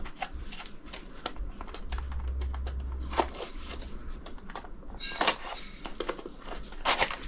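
Cardboard box and its packing material being opened and handled by hand: a scattered, irregular run of sharp clicks, crinkles and rustles, busiest about five seconds in.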